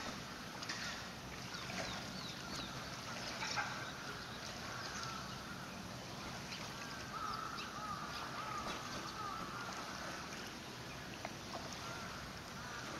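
Water splashing and sloshing as a Malayan tapir wades through a shallow pool and works its snout in the water, with many small splashes and drips and one sharper splash about three and a half seconds in.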